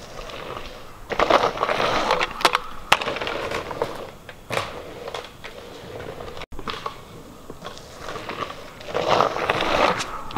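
Dirt scooter's wheels rolling and crunching over a packed-dirt pump track, swelling twice as the rider passes close, with a few sharp clicks and knocks from the wheels and deck.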